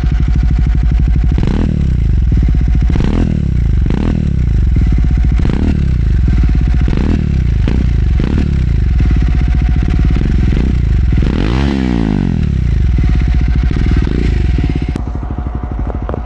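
Triumph Speed 400's single-cylinder engine idling through a Muff City slip-on exhaust with a bassy note, blipped about eight times. The biggest rev comes about twelve seconds in and falls back to idle.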